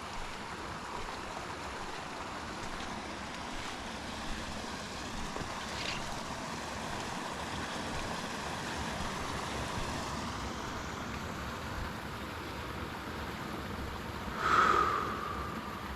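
Forest ambience: a steady rushing noise with a faint brief chirp partway through. Near the end comes a short, loud pitched call that drops slightly in pitch.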